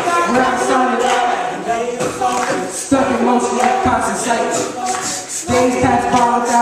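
Group of voices singing together over a tambourine, with held notes and sharp percussive strokes.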